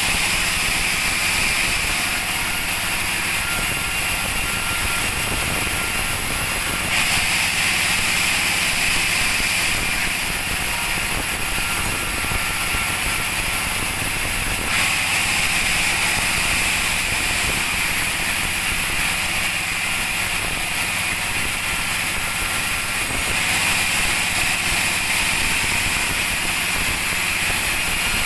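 Sawmill bandsaw running steadily with a loud hissing whine over a low motor hum; the hiss grows and fades in stretches of several seconds.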